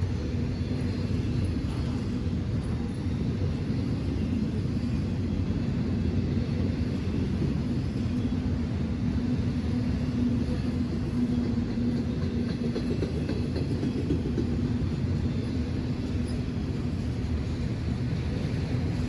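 Train rolling by with a steady low rumble and a held low hum.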